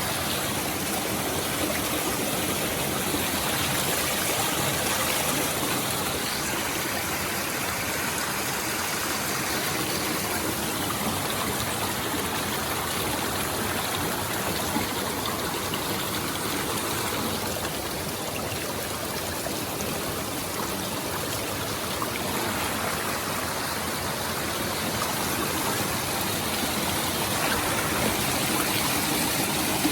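Steady rushing of a rainforest stream, flowing water running over rocks with no break.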